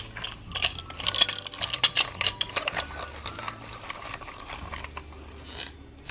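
Plastic Play-Doh fry-cutter toy being spun by hand, its parts clicking rapidly. The clicks are densest in the first three seconds and thin out after.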